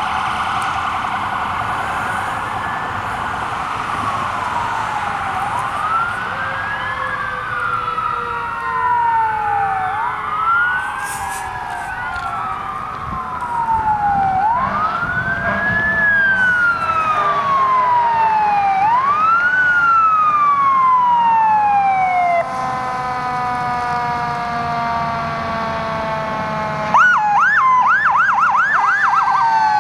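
Fire department emergency vehicle sirens wailing as the units pass, several overlapping and each pitch rising and falling slowly. About 27 seconds in, a siren switches to a fast, rapidly repeating yelp.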